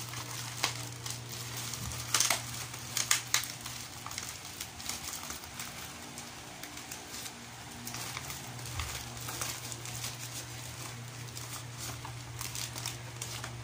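Plastic parcel wrapping and packing tape being torn and crinkled open by hand: irregular crackles and rustles, loudest about two to three and a half seconds in.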